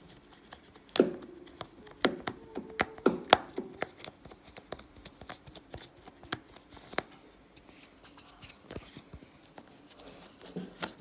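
Fingers poking and squeezing slime in a plastic tub, making quick, irregular pops and clicks. The loudest pops come about a second in and again between two and three and a half seconds, then thin out.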